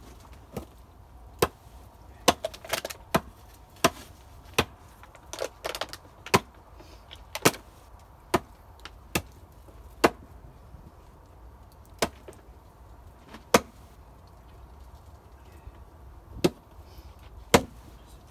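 A hand tool striking wood in a string of sharp blows, roughly one a second, with a few short pauses.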